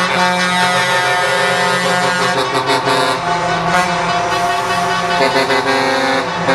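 Truck air horns blowing long held blasts, several tones sounding together and changing to new notes every second or two as different horns take over, over the noise of passing trucks.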